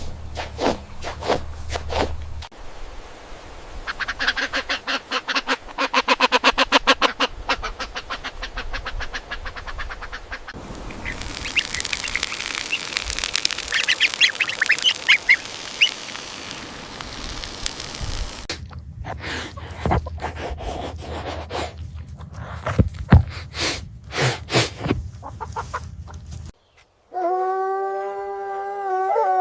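Ducks quacking in fast runs of calls, followed by a chorus of high-pitched bird calls and some scattered knocks. Near the end a dog starts a long, smooth howl.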